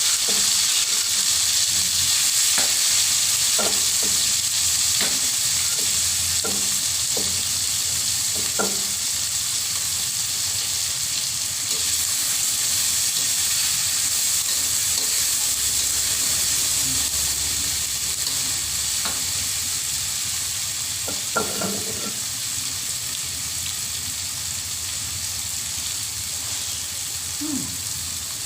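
Sliced shallots and chillies sizzling in hot oil in a pan, a steady frying hiss that slowly fades. Short scrapes and taps of a spatula stirring come in a cluster over the first several seconds and again about three quarters of the way through.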